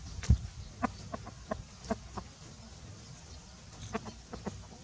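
Rooster clucking in short, separate calls: a run of about six between one and two and a half seconds in, and four more near the end. A low thump comes just after the start.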